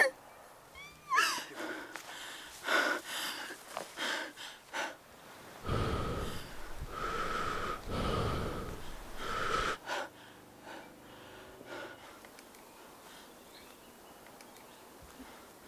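Heavy, ragged breathing with a few short whimpers. From about six to ten seconds in comes a louder, deeper breathing or growling sound lasting about four seconds.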